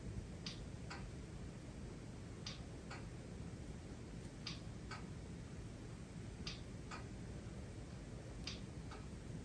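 Faint, very regular ticking: pairs of short ticks about half a second apart, repeating every two seconds, over a low steady room hum.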